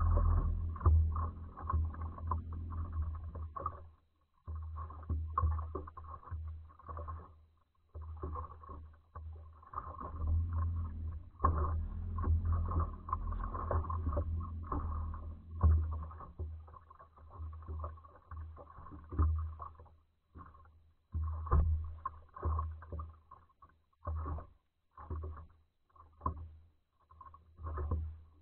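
Wind buffeting the microphone of a boat-mounted camera: an irregular low rumble that comes and goes in gusts, dropping out briefly about four and eight seconds in and several times near the end.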